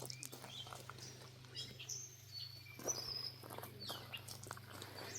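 Small songbirds chirping in the woods: short, high, scattered chirps, some falling in pitch, with a few soft footfalls on the trail.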